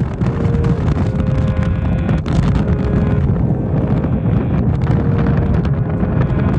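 Strong wind buffeting the microphone, a loud, continuous low rumble.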